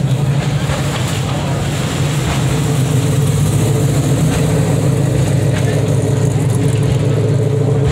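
A vehicle engine running steadily with a low rumble, a faint higher hum joining about three seconds in.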